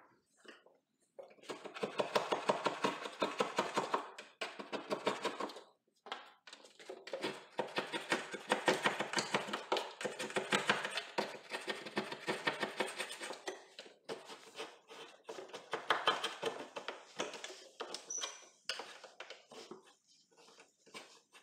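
Hand scraper scraping old glue off the wooden stair frame in rapid strokes, in three spells with short pauses between.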